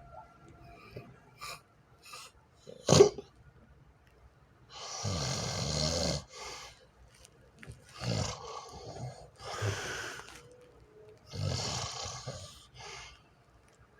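A person snoring in their sleep: a run of about five rough snores a second or two apart from about five seconds in, after a single sharp sound about three seconds in.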